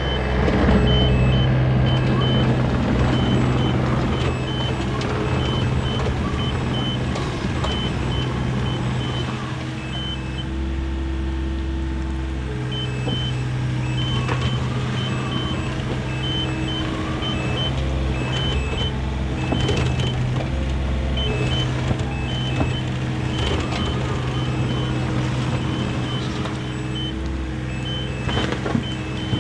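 IHI 30VX mini excavator's diesel engine running under load, its hydraulics rising and falling as the arm and bucket work, with a few clanks. A rapid high alarm beeping sounds over it most of the time, with a short break about a third of the way in.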